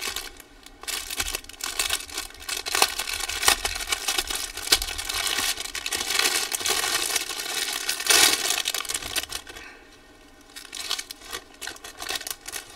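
Clear plastic cling wrap crinkling and crackling as it is pulled off a bundle of small plastic bags of diamond-painting drills. The crackling is dense at first, dies down about ten seconds in, then picks up again more sparsely.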